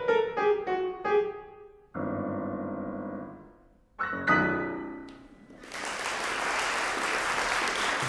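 Piano music: a quick run of notes, then a held chord, then another struck chord that fades out about five seconds in. It gives way to a steady, even wash of noise.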